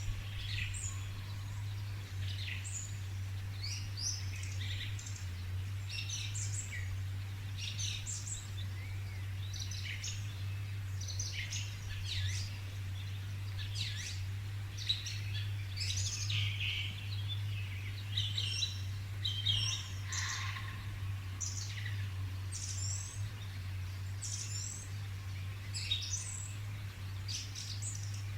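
Several wild birds chirping and singing at once in a forest, many short high trills and tweets overlapping, over a steady low hum.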